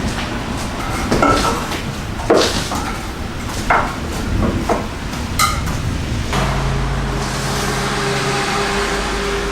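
Scattered knocks and clanks of hard objects being handled. About six seconds in, a steady low hum of a few held tones starts.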